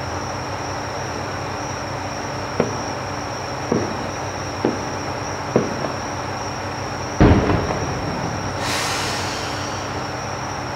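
Fireworks bursting at a distance: four sharp pops from small shells, then a single loud boom about seven seconds in that rolls away, with a brief hiss just after.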